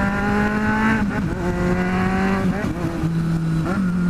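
Kawasaki Z750 inline-four engine running while riding, with wind rush on the microphone. Its steady pitch dips about a second in and settles lower near the end as the throttle eases.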